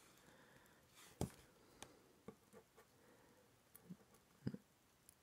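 Faint, scattered small metallic clicks and taps from tweezers and tiny brass lock pins being handled while loading an ASSA Twin 6000 lock cylinder, about half a dozen in all, the clearest about a second in.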